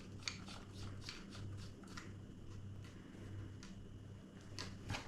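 Faint handling sounds of crossbow parts being fitted together by hand: a run of light clicks and scrapes, several a second, over a low steady hum.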